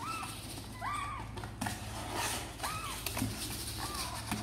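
Young kittens meowing, about four short rising-and-falling cries, over the scratching and scrabbling of a kitten's claws on the side of a cardboard box as it climbs out.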